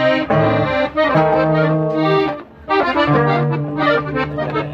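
Live norteño band playing a dance tune. The accordion carries the melody in held notes over a steady bass line, with a brief break a little past halfway.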